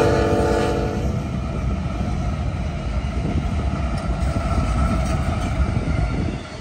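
A lashup of Union Pacific diesel-electric freight locomotives passing close by, engines rumbling, with the horn's chord sounding for about the first second before it cuts off. Near the end the rumble drops off as the last locomotive goes by and the stacked container well cars follow.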